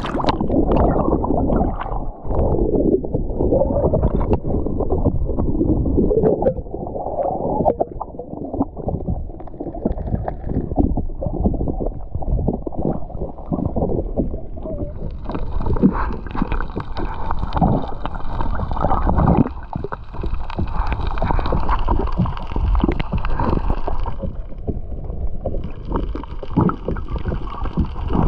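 Muffled water sloshing and gurgling around a GoPro held underwater while snorkelling. A steady high whine joins about halfway through, breaks off briefly near the end, then comes back.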